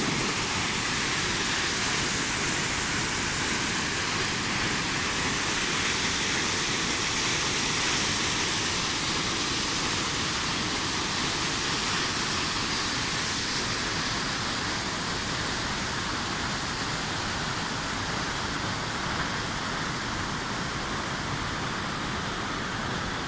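Waterfall plunging into a rock basin: a steady, unbroken rush of falling water, its hiss growing a little duller in the second half.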